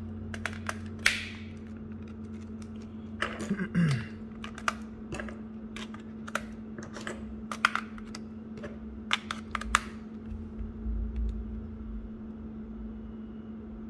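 Small plastic-and-metal clicks, taps and a scrape from handling a Texas Instruments TI-83 graphing calculator as AAA batteries are fitted into its battery compartment. There is a busier clatter near four seconds in, and the clicks stop about ten seconds in. A steady low hum runs underneath.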